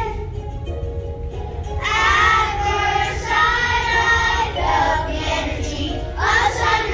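Children singing a song with musical accompaniment; a sung phrase resumes about two seconds in after a short lull.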